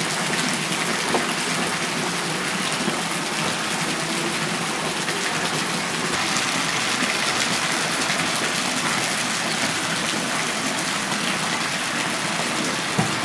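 Thin streams of water falling from spouts into a stone pool, a steady splashing wash.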